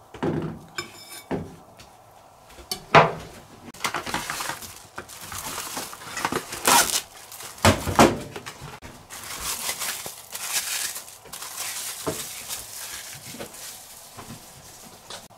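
Kitchen handling: a few knocks of a knife and plate, then plastic cling wrap crackling and crinkling for several seconds as it is pulled and pressed over a plate, with a few sharper clicks, and a couple of light knocks near the end.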